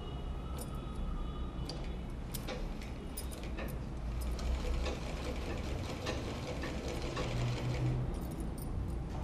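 Sewing machine running, stitching a binding strip onto a curved edge, with light clicks over a steady low hum.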